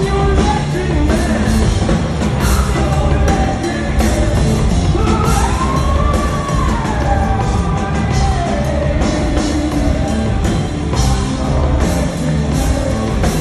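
Rock band playing loudly live: electric guitar, a drum kit with cymbal crashes, and a male singer, heard from the audience through a phone's microphone.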